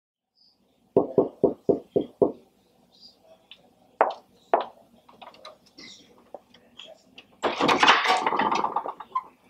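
Six quick knocks on a wooden front door, then two more single thuds a few seconds later. Near the end comes a longer, louder rattle and rush as the door is pulled open.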